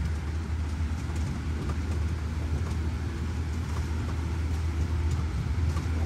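Small tourist road train running steadily, heard from on board as a constant low rumble.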